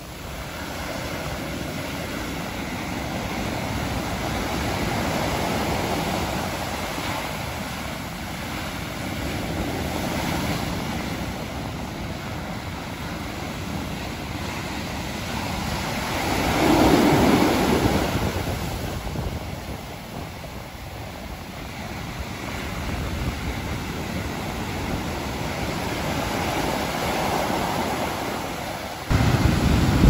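Rough sea surf breaking and washing up a sandy beach, the rush of water swelling and falling with each wave. The loudest wave breaks a little past the middle, and a louder surge starts suddenly just before the end.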